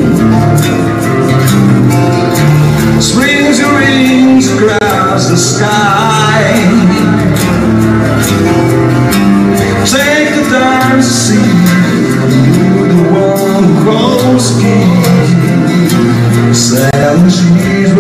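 Live acoustic rock band: a male singer over two strummed acoustic guitars, with light percussion.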